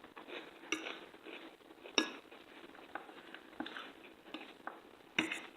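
Cutlery clinking and scraping against a plate while eating, in a few short sharp clinks: the loudest about two seconds in, and two close together near the end.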